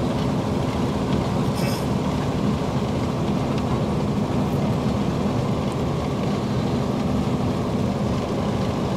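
Steady rush of tyre and wind noise from a vehicle driving at speed on fresh asphalt, with a low engine hum underneath.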